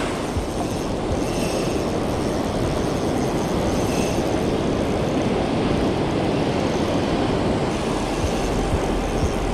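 Steady rush of surf washing over the sand, mixed with wind buffeting the microphone.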